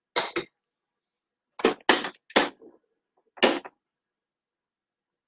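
Short clunks and knocks from handling a stand mixer and its bowl: two close together at the start, three or four in quick succession about two seconds in, and one more at about three and a half seconds.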